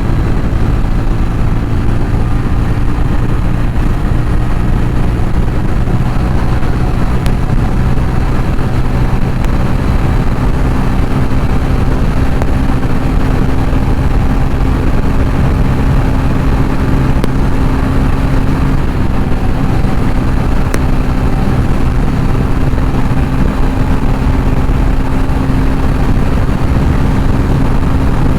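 TVS Ronin 225's single-cylinder engine pulling steadily at high highway speed, its note rising slightly about ten seconds in and then holding, with wind rushing over the microphone.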